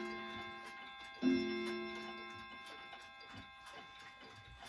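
Howard Miller Regulator wall clock striking the hour. The ring of the stroke before fades away, then one more stroke comes about a second in and dies away over the next couple of seconds. It is the last stroke of twelve for noon. The movement ticks steadily underneath.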